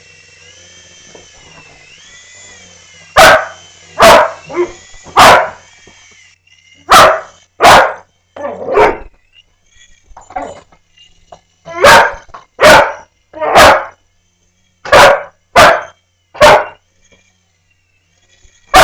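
Dog barking loudly and repeatedly in clusters of two or three, at a toy helicopter. For the first six seconds the helicopter's small electric motor whines with a wavering pitch, then cuts out.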